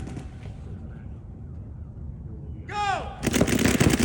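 Low rumbling background, then a short pitched gliding sound, then about three seconds in a dense, rapid string of sharp pops from paintball markers firing begins.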